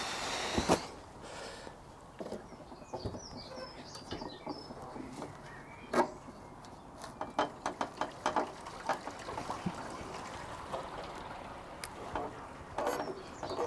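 Scattered light clicks and knocks of bolts, washers and timber being handled during assembly, with birds chirping a few times in the background.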